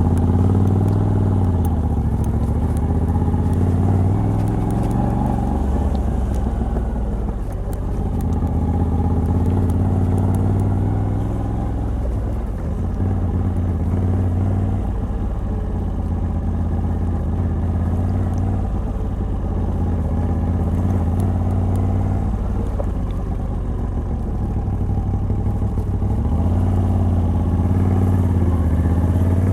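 Moto Guzzi V85TT's air-cooled transverse V-twin, on its stock exhaust with a Mistral de-cat pipe, running under way. The engine note falls and rises with the throttle a few times and climbs steadily near the end as the bike accelerates.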